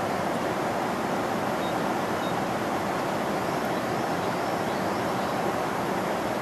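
Steady airliner cabin noise: an even, unbroken rush with no change in level.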